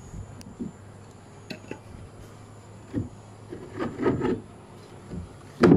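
Wooden rudder blade of a small wooden boat being swung and lifted by hand on its pivot mount: scattered wooden knocks and rubbing, with a louder clunk near the end.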